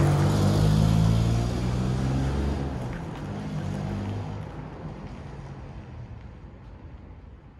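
A revived barn-find Suzuki Swift driving away just after passing close by. Its petrol engine note holds steady for a couple of seconds, then fades into the distance.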